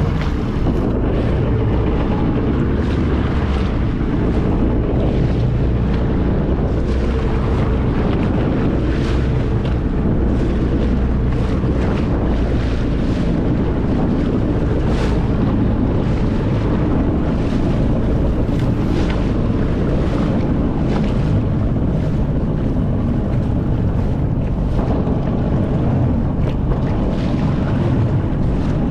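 Jet ski engine running steadily at speed over open water, with wind buffeting the microphone and the splash of waves.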